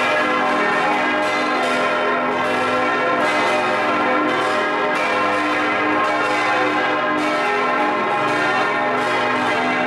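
Full peal of six swinging bronze church bells, tuned A-flat, C, E-flat, F, G and B-flat, ringing together, heard close up inside the belfry: strokes of different pitches overlap continuously under a dense hum.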